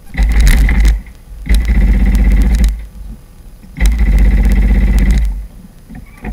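Personal watercraft (jet ski) engine revved up in three loud bursts, each about a second long, dropping back to a low level between them.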